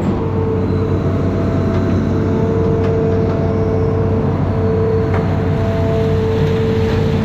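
Amphibious excavator's diesel engine running steadily under a low drone, with a steady whine above it that breaks off briefly twice.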